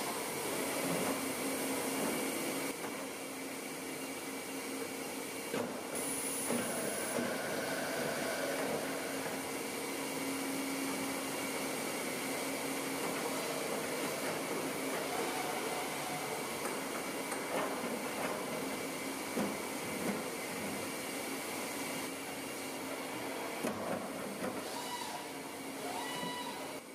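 Steady hum and hiss of running machinery, with a few faint knocks and clicks.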